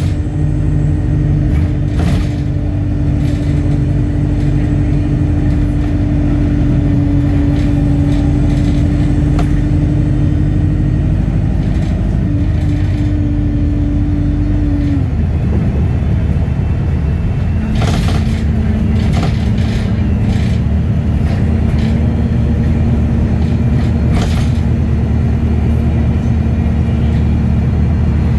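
Bus engine and road noise heard from inside the passenger saloon while the bus is under way: a steady low drone whose held pitch drops away about halfway through and settles lower a few seconds later. A few short interior rattles come about two-thirds of the way in.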